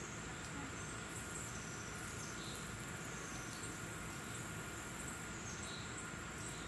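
Steady outdoor ambience of insects trilling, with continuous high-pitched tones and a few faint short chirps.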